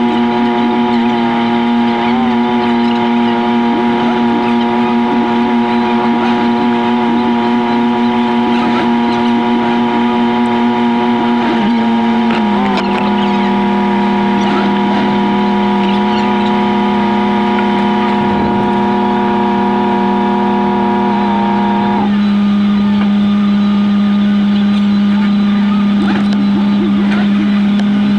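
Jeep Wrangler Rubicon engine sped up six times, heard as a steady high-pitched buzzing drone. It drops a little in pitch about halfway through and changes tone again near three-quarters of the way.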